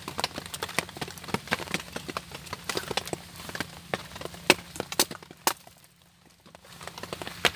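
Dry wooden kindling being split and handled by hand: a quick, irregular string of sharp knocks and cracks, with a short lull near the end.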